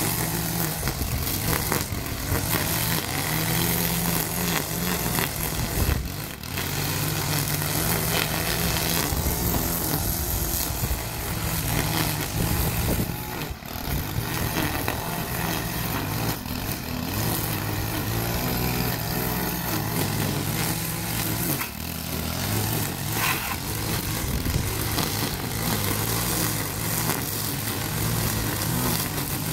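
Gas string trimmer engine running at cutting speed as it cuts grass, its note rising and falling with the throttle. It eases off briefly three times.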